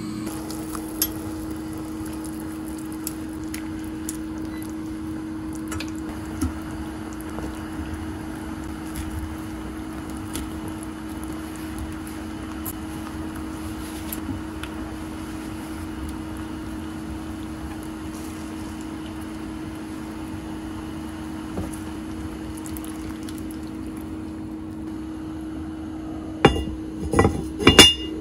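A steady low hum with scattered light knocks and clinks of kitchen work, then, near the end, several loud clinks as the enamelled cast-iron lid of a Staub cocotte is set onto the pot.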